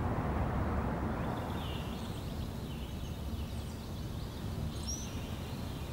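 Outdoor ambience: a low, even rumble, with faint bird chirps from about a second and a half in.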